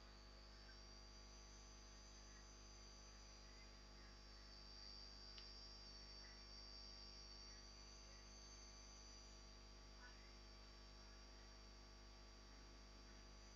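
Near silence: a faint steady electrical hum, with a faint high-pitched whine that wavers slightly in pitch.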